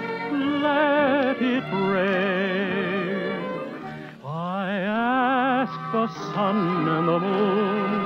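A tenor sings a slow ballad with a wide vibrato over band accompaniment, taking a short breath about four seconds in before the next phrase slides up into a held note. It comes from a 1942 radio broadcast recording, so the sound is dull, with no treble.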